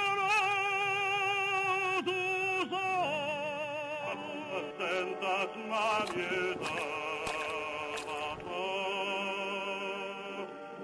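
Operatic-style singing voice: a long held note with vibrato for about the first three seconds, then a run of shorter notes, also with vibrato.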